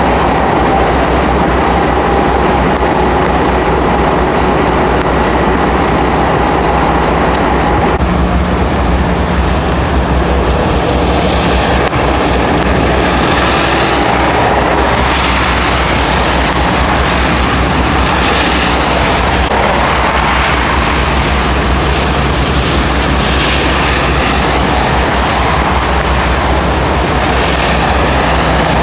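Steady rumble of motor vehicles and traffic noise, with a faint falling whine in roughly the first eight seconds.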